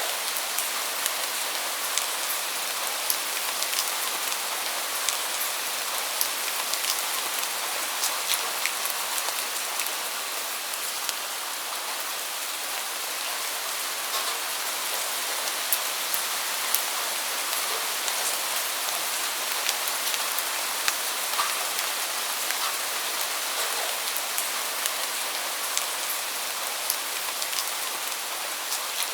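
Steady rain falling on a hard surface, an even hiss with many distinct droplet taps scattered through it.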